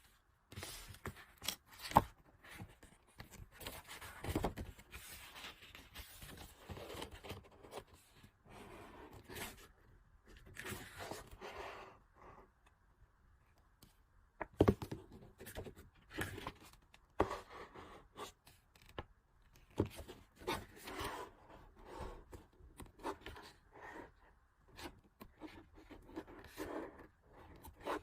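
Merchandise packaging being handled and opened by hand: irregular rustling, crinkling and tearing of plastic and paper wrapping, with scattered clicks and two sharper taps about 2 seconds and 14 seconds in.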